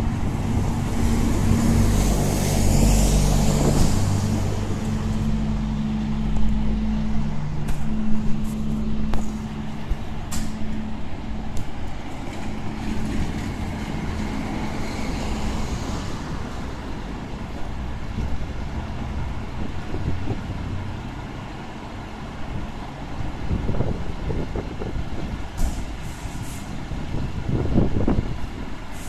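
Diesel engine of a Scania fire engine running in its station bay, louder for the first several seconds and then settling to a lower, steadier sound, with a few sharp clicks.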